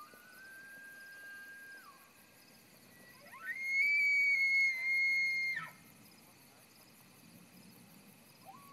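Bull elk bugling. A distant bugle holds a high whistled note and fades out about two seconds in. Then a louder bugle sweeps steeply up to a high, piercing whistle, holds it for about two seconds and drops away, and another bugle starts right at the end.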